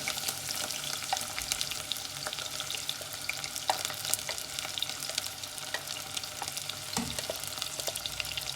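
Onions sizzling and crackling as they fry in hot oil in a pan, with scattered sharp pops and the occasional scrape of stirring.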